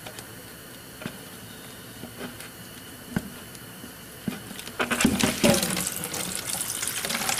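A few faint clicks, then about five seconds in, radiator coolant starts gushing out of the Honda CR500's drain bolt hole and splashing into a plastic jug.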